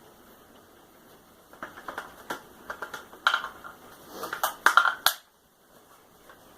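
A handheld vacuum being handled with its motor off: a run of sharp clicks and knocks lasting about three and a half seconds that stops suddenly.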